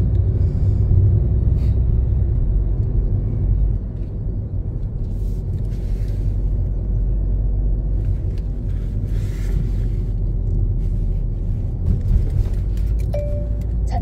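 Car driving on a paved road, heard from inside the cabin: a steady low rumble of engine and tyres that drops a little in level about four seconds in.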